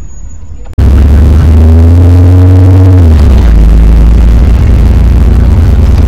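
Bus engine heard on board, boosted until it distorts in an 'earrape' edit, cutting in abruptly under a second in. A steady rumbling drone with a held tone over it that drops in pitch about three seconds in.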